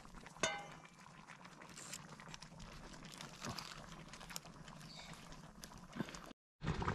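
Faint open-air ambience at a wood cooking fire: a steady low hiss with scattered small clicks and knocks, and a short high call about half a second in. The sound drops out briefly just before the end.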